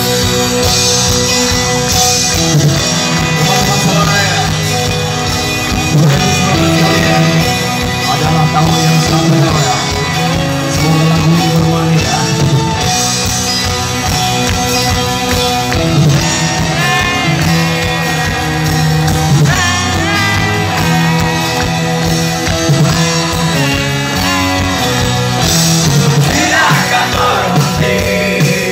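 Live rock band playing loudly through a festival PA, with a voice singing over the music in the second half.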